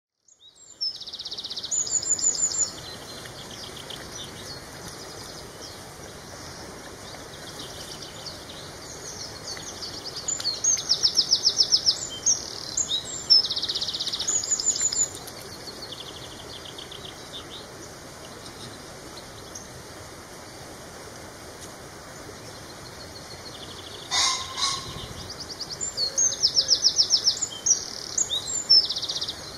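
Small songbirds singing in bursts of rapid trilled notes, each burst a couple of seconds long: one about a second in, several from about 8 to 15 seconds, and more from about 24 seconds, over a steady faint outdoor hiss.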